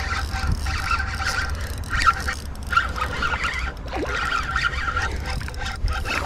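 Spinning reel's drag buzzing in short repeated bursts, about one a second, as a hooked fish pulls line, over a steady low rumble.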